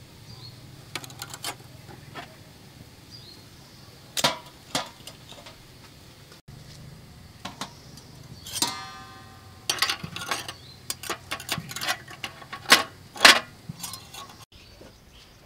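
Metal tongs clinking against small steamed bowls and an aluminium steamer pot as the bowls are lifted out. There are scattered sharp clinks, with one longer ringing metallic clink a little past halfway.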